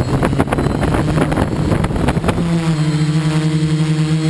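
Small quadcopter's electric motors and propellers spinning up for takeoff, rough with rapid clicks at first, then settling about halfway through into a steady buzz.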